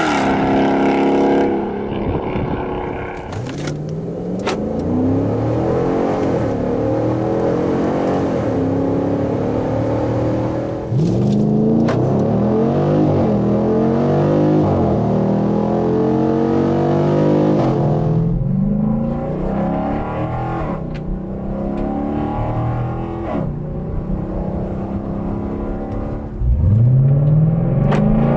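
Dodge Durango's 5.7-litre Hemi V8 exhaust, the engine repeatedly revving up and dropping back. Near the end it climbs sharply from low revs and gets louder.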